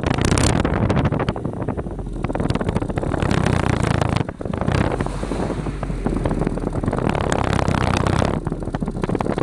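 Vauxhall Astra SRi with its engine switched off, making a repeated "tug tug tug" sound, heard through heavy wind noise on the microphone and many irregular knocks.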